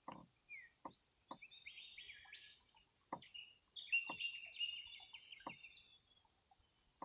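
Birds chirping and warbling in overlapping chattering bursts, with a few faint ticks in between.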